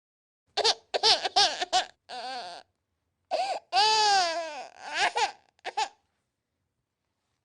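Baby crying in a run of short, broken cries, with one longer cry rising and falling in pitch about four seconds in. The crying stops about six seconds in.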